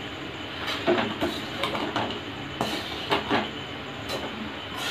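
Metal spatula scraping and knocking against a metal kadai as soaked puffed rice is stir-fried with spice paste: irregular clinks and scrapes, two or three a second, over a steady low hiss.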